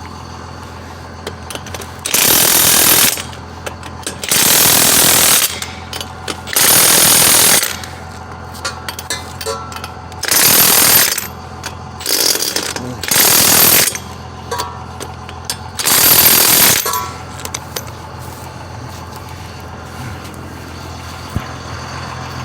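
Impact wrench hammering on the lug nuts of a motorhome's rear dual wheels: seven bursts of about a second each, with short pauses between, over a steady low hum.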